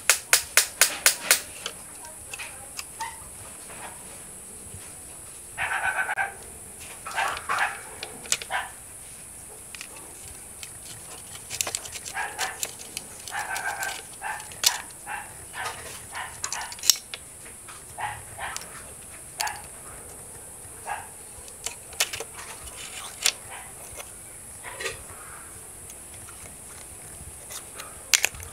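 Clicks and taps of the parts of a disassembled plastic toy M16 being handled and fitted by hand, with a quick run of sharp clicks at the start. Short noisier sounds come and go through the middle.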